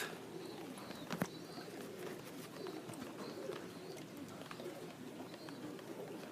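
Domestic pigeons cooing: several low, overlapping coos throughout, with a single sharp click about a second in.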